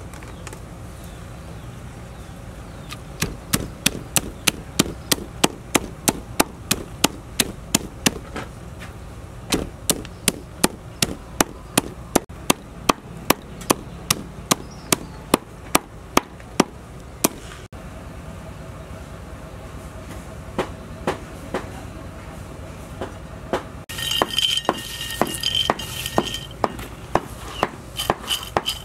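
Meat cleaver chopping whole frogs and pork fat into mince on a wooden chopping board: steady, sharp chops at about three a second, with a short pause partway, then slowing to scattered strokes. Near the end a louder rustling clatter takes over.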